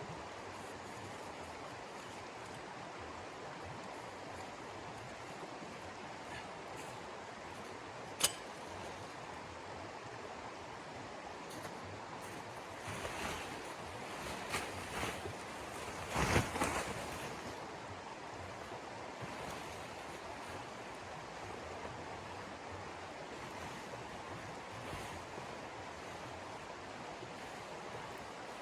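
Steady rushing wind of a snowstorm. About eight seconds in there is a single sharp click, and about halfway through there is a short run of louder rustles ending in a thump.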